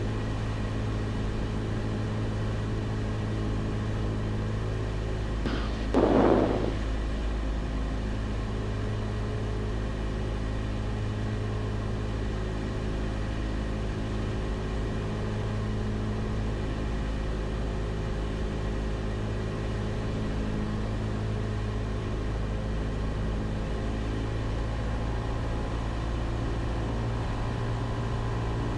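Cessna 172's engine and propeller running in a steady drone on final approach, with one brief louder sound about six seconds in.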